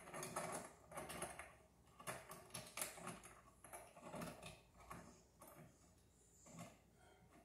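Faint, irregular metallic clicks and rattles from hands fitting an armored-cable connector into a steel junction box, thinning out toward the end.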